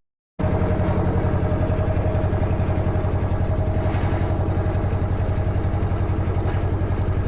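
Narrowboat's diesel engine running steadily under way, with an even pulsing beat; its engine compartment has no insulation padding yet, so it sounds loud. It starts about half a second in, after a brief silent gap.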